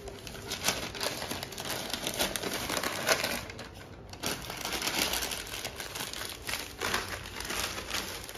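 Hands folding and wrapping a banana-leaf rice parcel (pothichoru): irregular crinkling and rustling of the leaf and its wrapping, with a brief lull about three and a half seconds in.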